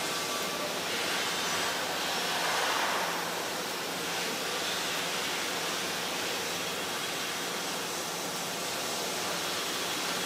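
Steady hiss and faint low hum of a welding shop while a welder works a hand torch on a sheet-metal cone, swelling slightly about two to three seconds in.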